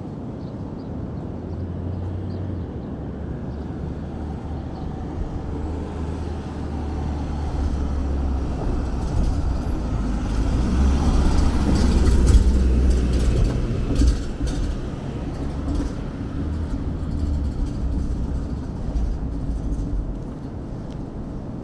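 A motor vehicle passing close by: a low engine rumble that builds to its loudest about twelve seconds in, then fades away.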